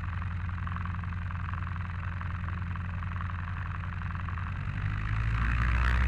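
1946 Cessna 140's four-cylinder engine and propeller idling steadily; about five seconds in the throttle opens and the engine speeds up and grows louder.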